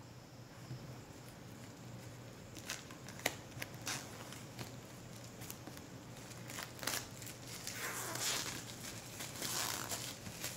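Clear plastic shrink-wrap being torn and peeled off a cardboard Blu-ray box set, crinkling. A few sharp clicks come a few seconds in, and the crinkling is loudest near the end as the wrap comes away.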